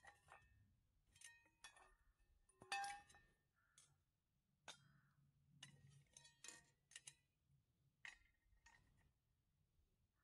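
Metal parts of a nested camping wood stove clinking against each other as they are lifted out with tongs and stacked. About fifteen light clinks, each with a brief ring, the loudest about three seconds in.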